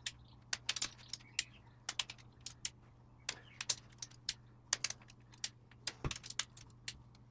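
Socket ratchet clicking in short runs as bolts on top of a Land Rover Puma 2.4 TDCi diesel's cylinder head are turned a further 45 degrees in the final tightening stage. One heavier knock comes about six seconds in.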